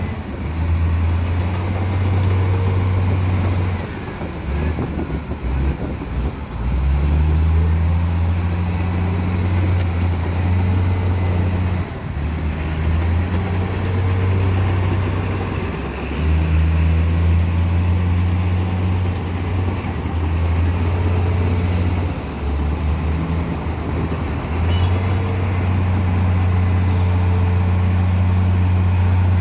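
Heavy diesel engine of construction machinery running hard during a mud recovery: a steady, deep low hum that drops back several times and picks up again as the load comes and goes.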